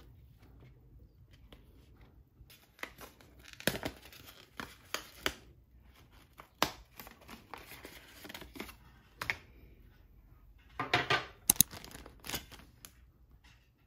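Packaging unwrapped by hand: a kraft cardboard sleeve pulled and torn off a wire letter holder, then a small plastic bag crinkling. Irregular rustles and sharp clicks start about three seconds in, with the loudest crinkling near the end.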